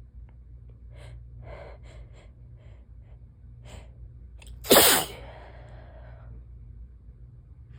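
A person takes several short, gasping breaths that build up, then gives one loud sneeze a little past halfway through, in the middle of a sneezing fit.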